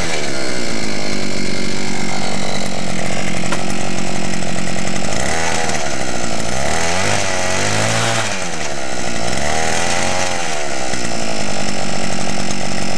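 Earthquake Dually 52cc two-stroke earth auger engine running, its pitch rising and falling several times about halfway through as the throttle is opened and released.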